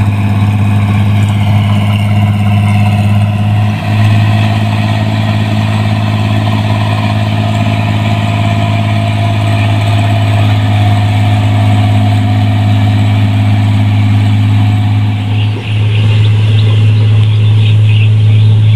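Rice combine harvester engine running steadily under load, with two brief dips in loudness and some rattling near the end.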